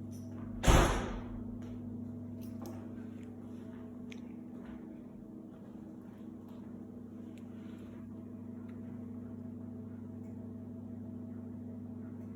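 A steady low electrical hum, with one loud knock about a second in that rings briefly, then scattered light clicks and tapping.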